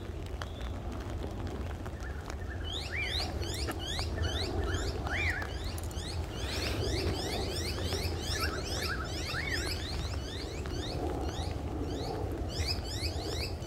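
Birds chirping, many short sweeping calls overlapping in quick succession from a few seconds in, over a steady low rumble.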